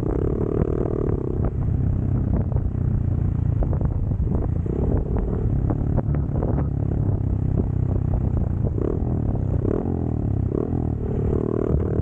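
Motorcycle engine running steadily under way, with scattered knocks and rattles.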